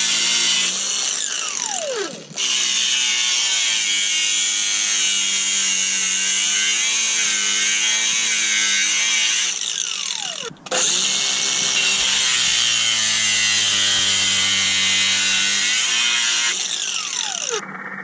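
Handheld angle grinder running at full speed and cutting metal, a steady high-pitched whine. Three times the motor spins down in a falling whine, then it is back at full speed.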